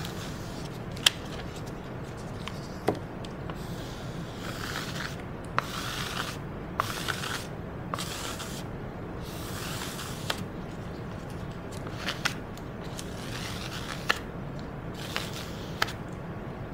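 Cardboard dauber scraping excess etching ink off an inked zinc intaglio plate: a series of irregular rasping strokes with scattered sharp clicks, the step that clears surplus ink before wiping.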